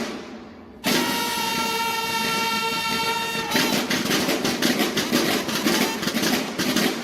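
Mexican banda de guerra: the bugles sound one long held note, and about halfway through the drums come in and the band plays on.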